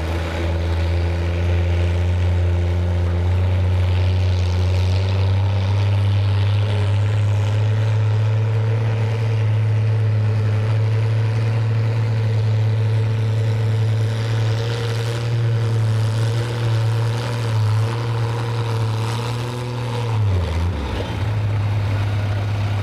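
International Harvester tractor engine running at a steady, high speed under full load while pulling a weight sled. About 20 seconds in, the pitch falls quickly as the throttle comes off at the end of the pull, then settles to a lower, steady run.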